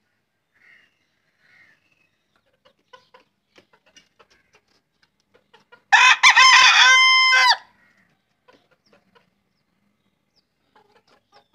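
Desi (native-breed) rooster crowing once, about six seconds in. The crow lasts about a second and a half, with a broken, stuttering opening and a long held final note. Faint clucks and small scratching clicks are heard before and after it.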